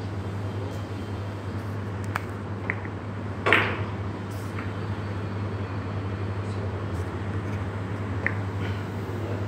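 Steady low hum of the billiard room, with a few short sharp clicks and one brief, louder noise about three and a half seconds in.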